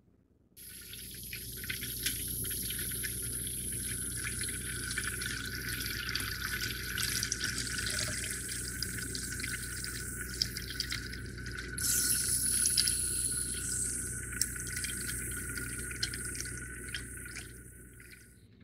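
Tap water running in a steady stream into a plastic pitcher, filling it. It starts about half a second in, is louder for a stretch about two-thirds through, and fades out near the end.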